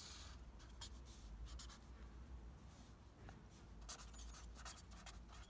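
Felt-tip pen drawing lines on paper: faint scratching strokes, a few of them louder, around a second in and again near four seconds.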